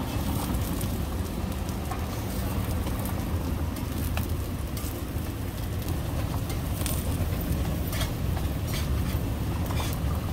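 Ramly burger patties sizzling on a street-stall griddle: a steady hiss with a few sharp clicks about halfway through and near the end. Underneath runs a steady low rumble.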